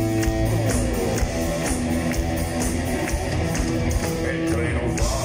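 Live rock band playing an instrumental passage through a concert PA, with electric guitar, drums keeping a steady beat, and keyboards.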